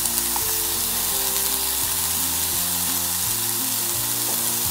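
Diced chicken sizzling steadily in a hot nonstick pot, with background music playing under it.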